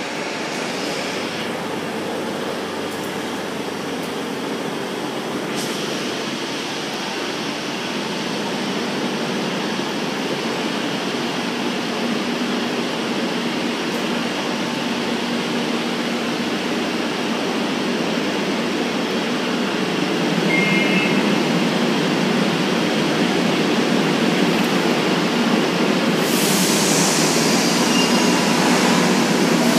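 Madrid Metro Serie 2000-A train standing at an underground platform, its steady hum growing gradually louder. A brief high beep sounds about two-thirds through, and a loud hiss of air starts a few seconds before the end.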